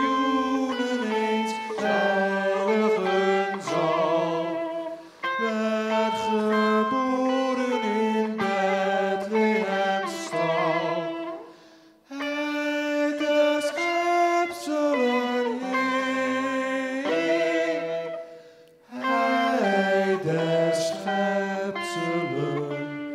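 Electric guitar playing a slow, melodic solo of long sustained notes with vibrato, in phrases broken by short pauses.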